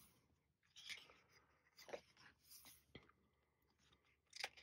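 Faint paper rustling and a few soft taps as the pages of a sticker book are turned and pressed flat by hand.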